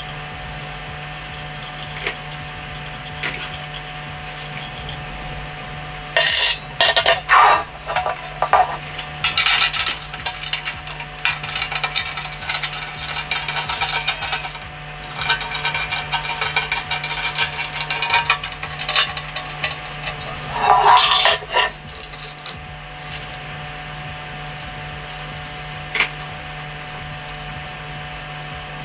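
Metal barbecue parts clinking, rattling and scraping as the legs are handled and fitted into the bowl during assembly. The clatter comes in bursts, busiest from about six seconds in until about twenty-two seconds, with only odd clicks before and after.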